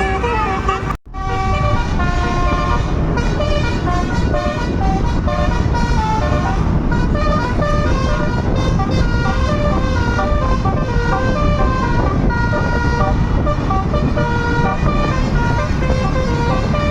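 Tour bus 'telolet' multi-tone air horn playing a quick melody of changing notes over steady engine and road noise. The sound cuts out briefly about a second in.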